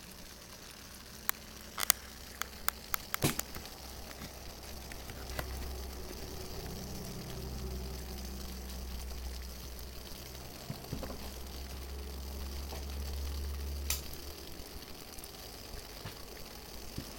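Water in a Foster's beer-can pot nearing the boil over a Fancee Feest alcohol stove burning Iso91, with the steady hiss of heating water. A few sharp clicks come in the first few seconds and once more near the end, and a low rumble runs through the middle.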